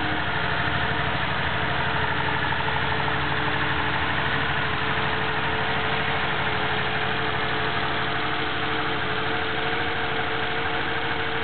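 Air-cooled, dual-plug 2.4-litre Polo flat-four with individual throttle bodies, idling steadily and running smoothly.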